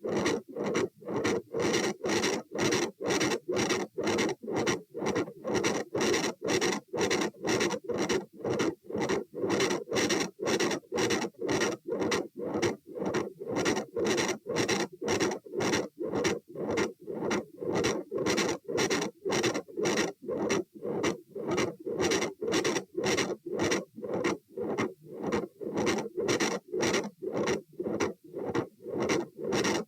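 Heart sounds heard at the aortic area, beating fast at about two beats a second, every beat carrying a very loud murmur.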